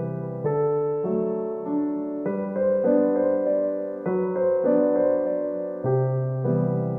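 Background piano music: slow, gentle chords and melody notes, changing about every half second to second.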